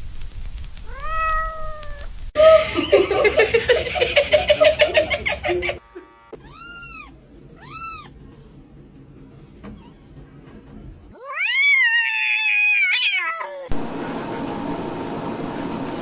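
Cats meowing across several clips: single rising-and-falling meows, a stretch of rapid, pulsing yowling, and one long, wavering drawn-out meow near the end.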